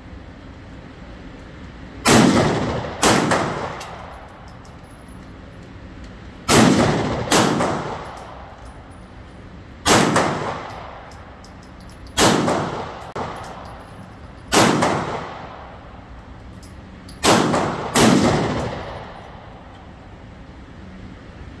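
AR-15 rifle fired in slow, deliberate shots, about ten in all, several coming in quick pairs, each crack followed by a long echoing decay inside an indoor shooting range.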